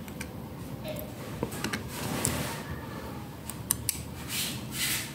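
Small plastic clicks and rubbing as a miniature model railway tank wagon is handled and turned over in the hand, a handful of sharp ticks scattered through it.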